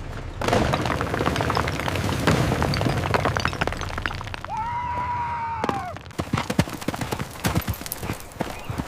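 Crashing, crackling noise of falling rock and debris in a landslide. A buffalo gives one long cry about halfway through, and a run of sharp cracks and knocks follows.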